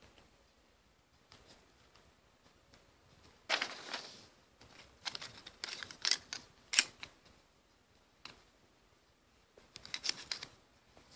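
Wooden popsicle sticks and a hot glue gun being handled: a sudden handling noise about three and a half seconds in, then several bursts of light clicks and taps.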